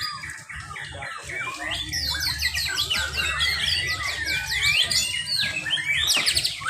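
Several white-rumped shamas (murai batu) in contest cages singing against one another, a dense, continuous tangle of overlapping rapid whistles, trills and chattering phrases.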